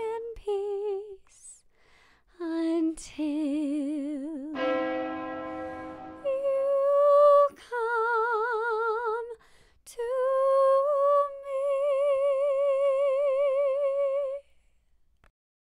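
A woman singing solo, unaccompanied, in long held notes with a wide vibrato, phrase after phrase; the last note is held for about three seconds and stops shortly before the end.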